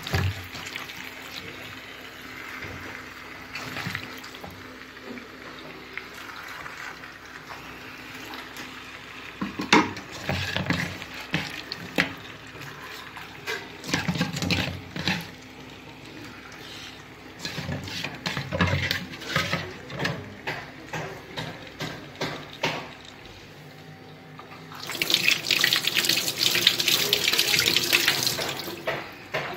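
Raw chicken pieces going into a pan of frying masala, with irregular knocks and scrapes from a wooden spatula. Near the end, a kitchen tap runs loudly into a steel sink as hands are rinsed under it.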